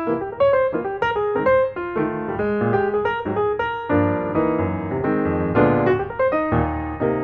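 Background piano music: a light tune of quick notes over chords.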